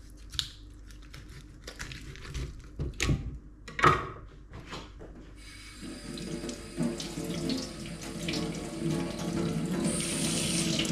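Knife cutting through a fish's head and knocking on a wooden chopping board, several sharp knocks over the first five seconds. Then a kitchen tap runs into a stainless steel sink as the fish parts are rinsed under it.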